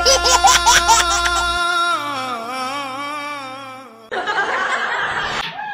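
A woman's long, wavering wail that slides down in pitch, followed about four seconds in by a short burst of laughing.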